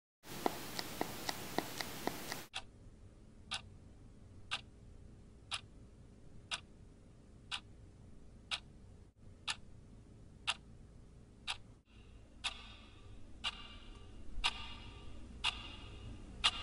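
A clock ticking steadily about once a second. It follows a brief hissy stretch with quicker ticks at the start, and from about twelve seconds in a hiss with high tones swells beneath the ticks.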